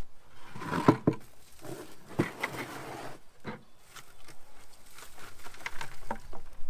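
A 5-gallon plastic bucket of potato plants handled on a wooden wagon bed, with a few sharp knocks about a second in as it is set down, then rustling of potato stems and soil as the plants are pulled out of the bucket.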